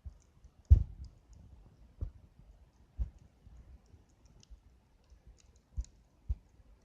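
Wood campfire crackling, with about five sharp pops at irregular intervals, the loudest about a second in.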